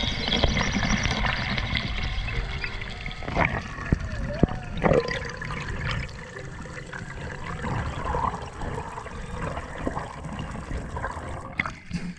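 Underwater water noise around an action camera: a steady rushing, bubbling wash as a spearfisher swims up toward the surface, with scattered sharp clicks.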